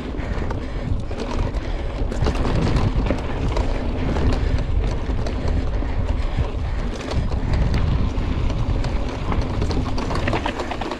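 Wind buffeting the microphone of a mountain bike descending a rough dirt trail, with a steady low rumble of tyres and a constant clatter of small knocks and rattles from the bike.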